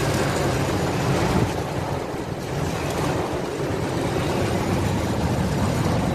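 Heavy rain and storm-force wind beating on a car, heard from inside the cabin: a steady rushing noise with a low rumble underneath.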